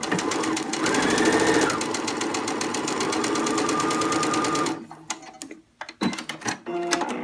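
Domestic sewing machine stitching a straight seam with a zipper foot alongside a zipper's teeth: the motor whines and the needle taps rapidly and evenly. It stops about two-thirds of the way through, followed by a few small clicks.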